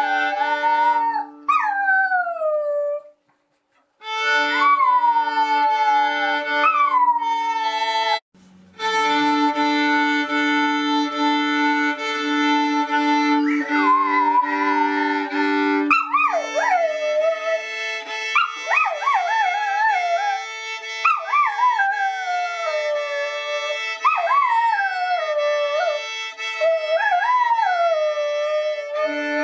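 Shetland sheepdog howling along to music, its howls sliding up and falling away in pitch over long held musical notes. The sound drops out briefly twice in the first nine seconds.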